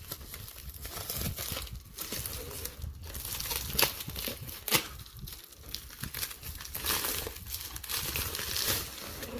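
Shipping package being cut and torn open by hand: irregular crinkling and tearing of the packaging, with several sharper rips and rustles.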